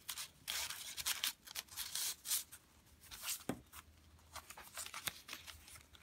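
Paper rustling and sliding as hands handle the pages of a handmade junk journal, drawing a tag from a pocket and turning a page. The rustle is busiest in the first two seconds or so, then gives way to softer scrapes and light taps.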